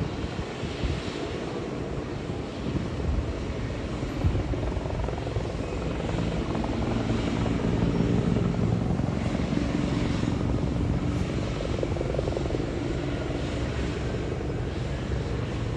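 Rescue helicopter in flight: a steady drone of engine and rotor, getting a little louder around the middle.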